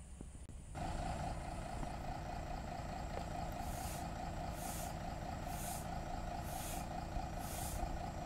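Fire engine running, with a steady mid-pitched drone and a low rumble starting just under a second in. From about halfway through, short hissing bursts come about once a second.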